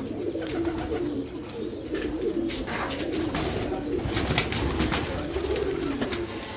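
A flock of caged domestic pigeons cooing continuously, many birds' wavering coos overlapping. A few scattered knocks and rustles come through near the middle.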